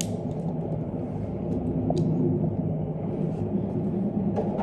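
Steady low background rumble with a hum, and a few light clicks of plastic model-kit parts being handled.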